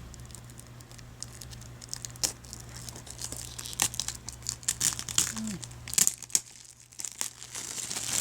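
Plastic shrink wrap being torn and peeled off a DVD case, crinkling and crackling in irregular bursts.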